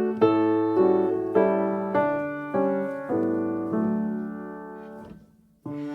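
Background music: piano notes struck one after another, about every half second, each ringing and fading. The phrase dies away about five seconds in, and a new note starts just before the end.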